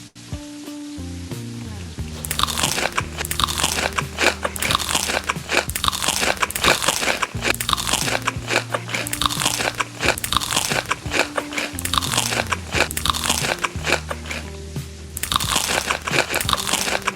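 Loud, close-up crunching as crisp food is bitten and chewed, starting about two seconds in, with a short pause near the end, over background music.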